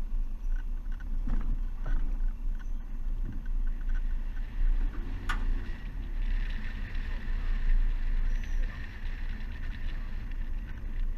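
Vehicle driving slowly over a rough dirt bush track: a steady low rumble of engine and tyres, rising and falling as it bumps along, with a few knocks and a sharp click about five seconds in.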